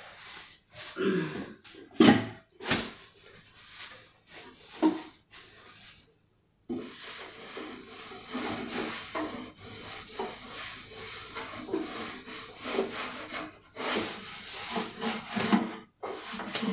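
Damp cloth rubbing and wiping a wooden nightstand, first in uneven strokes with a couple of sharp knocks about two seconds in, then after a brief pause in a long stretch of steady scrubbing.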